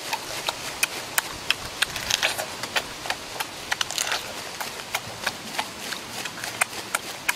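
Cooked crab shell crunching and cracking as it is bitten and broken apart by hand, with chewing: irregular sharp clicks and cracks throughout.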